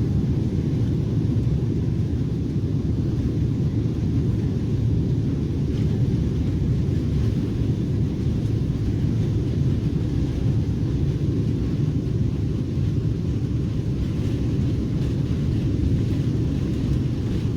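Airbus A320 cabin noise: a steady low rumble of engines and airflow heard from inside the passenger cabin.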